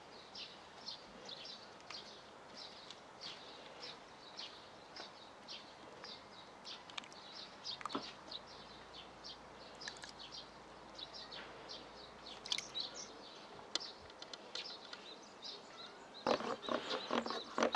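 Birds chirping with short, repeated high calls. Near the end a louder, rough rasping sound starts.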